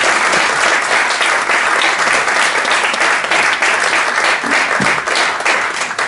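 Audience applauding steadily at the end of a lecture, starting to die away near the end.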